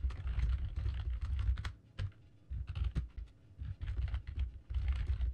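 Typing on a computer keyboard in several quick bursts separated by short pauses.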